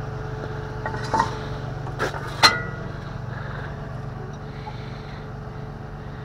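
Tow truck engine running steadily at idle, with a few metal clinks from the hook and rigging being handled; the loudest is a sharp, briefly ringing clink about two and a half seconds in.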